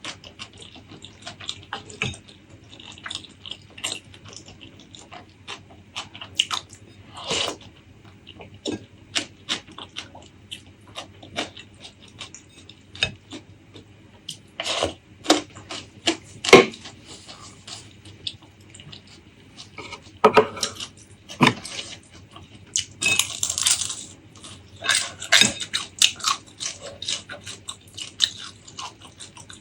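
Close-miked eating: chewing with many short wet mouth clicks and smacks, and a few longer, wetter noises about two thirds of the way through.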